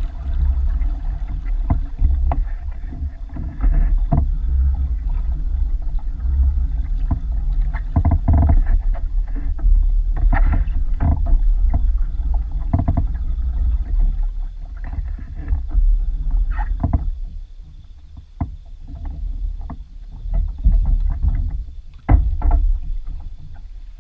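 Sounds aboard a fishing kayak: a low, uneven rumble with many scattered knocks and clicks. The rumble eases off for a few seconds past the middle.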